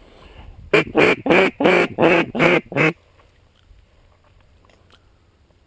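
A series of about seven loud, evenly spaced mallard hen quacks in a little over two seconds, like a hen's greeting call, then quiet.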